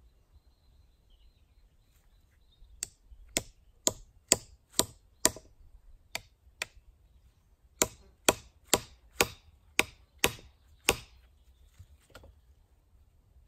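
Axe chopping into wood in two runs of sharp strikes, about two a second, with a couple of lighter taps between the runs.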